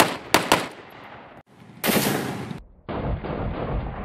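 Three rapid shots from a semi-automatic .308 rifle fitted with a compensator muzzle brake, each a sharp crack, dying away over about a second. After a sudden break there is a short burst of hiss, then a duller, muffled stretch of rapid gunfire.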